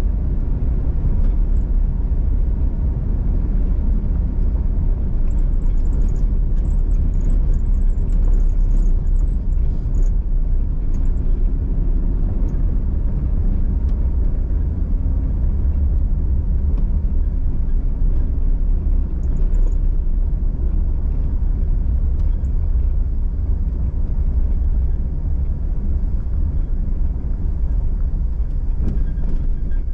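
Vehicle driving: a steady low rumble of engine and road noise, with faint light ticks between about six and ten seconds in.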